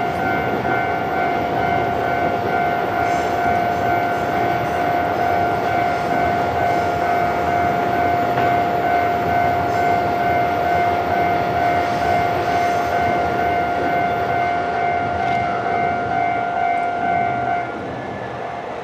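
Japanese level-crossing alarm ringing its repeating electronic bell tone, which cuts off suddenly near the end, over the steady rumble of a passing train.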